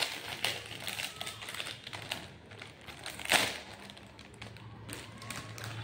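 Thin plastic packaging crinkling and crackling as a stationery packet is pulled open by hand, with one louder crackle about three seconds in.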